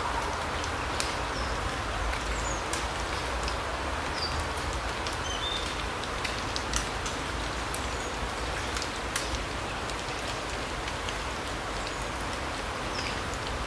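Forest soundscape: a steady even rush with scattered sharp ticks, and short thin high-pitched bird calls now and then.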